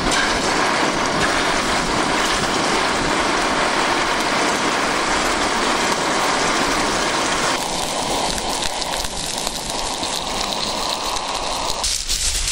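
Sirloin steak sizzling in a frying pan on a camping gas stove, a dense steady crackle that thins out later on and cuts off near the end.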